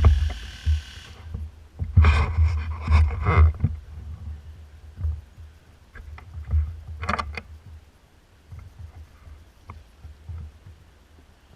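An airsoft electric gun (AEG) firing full-auto, a buzzing burst that cuts off about a second in. Then scattered knocks and scuffs over a steady low rumble.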